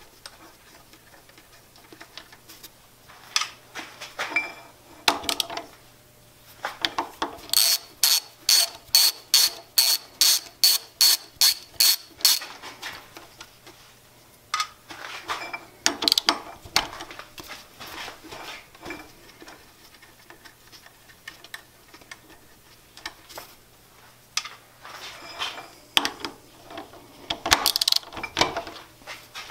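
Socket ratchet clicking as it backs out bolts inside a lathe headstock: a quick even run of about three sharp ratchet clicks a second lasting about five seconds, a quarter of the way in. Scattered metal clinks and knocks of the wrench and bolts come before and after it.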